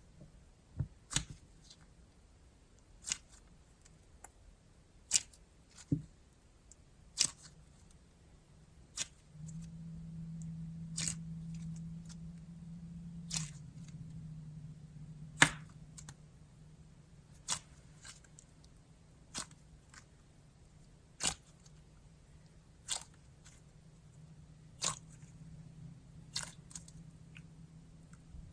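Handmade slime being pressed and squished by hand, giving sharp little clicking pops every second or two.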